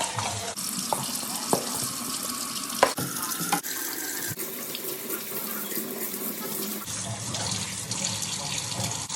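Water running from a tap into a sink, a steady rush with a few light knocks in the first few seconds; the flow sounds deeper from about seven seconds in.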